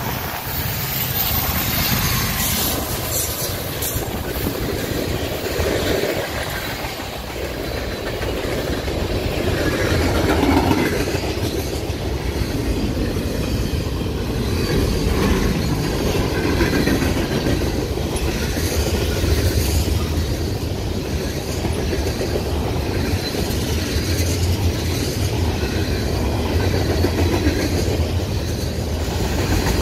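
Norfolk Southern freight train passing at close range: a steady rumble and clatter of freight-car wheels running over the rails as a long string of cars rolls by.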